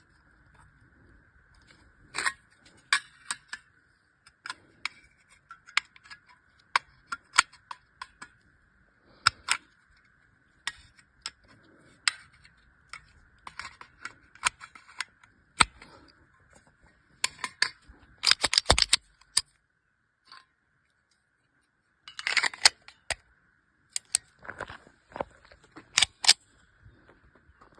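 Metal parts of a Zigana pistol being handled and fitted together: many separate sharp clicks and clacks, with a quick burst of rattling clicks a little past halfway, over a faint steady high hum.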